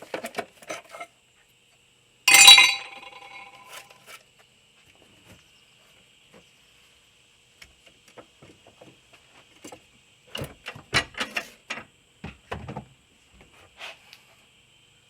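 Metal hand tools and parts clinking while a car battery is taken out: scattered clicks, a loud ringing metallic clang about two and a half seconds in, then a run of knocks and clunks in the last third.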